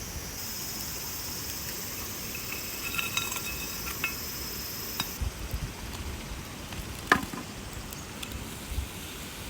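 Meat sizzling in an iron skillet over a campfire, with a few ringing metal clinks. The sizzle cuts off about five seconds in, and a single sharp clink follows near the end.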